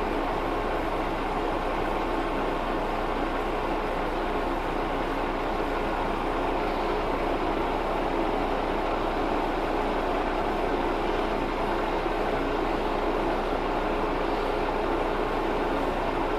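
Metal lathe running steadily at low speed with the power feed engaged, a boring tool taking a light finishing pass inside a bore. An even mechanical hum that does not change.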